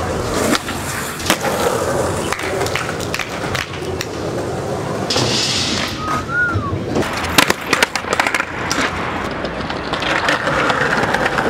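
Skateboard rolling on concrete, with repeated sharp clacks and knocks of the board, a quick cluster of them about two-thirds of the way in.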